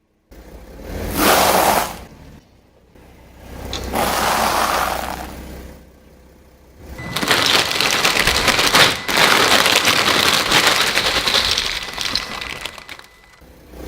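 A car tyre rolls over objects and crushes them, giving crackling, breaking noise in three runs: a short one about a second in, another at about four seconds, and a long one from about seven seconds in to near the end.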